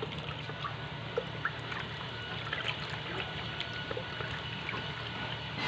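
Water-thinned graining mixture of paint and colorant being mixed in a container: liquid trickling and sloshing, with a few light clicks.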